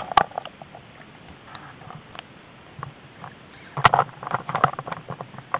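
Small electric RC boat's hull slapping and splashing through the water at speed, heard from on board: irregular sharp knocks and spray, heaviest just after the start and again about four seconds in.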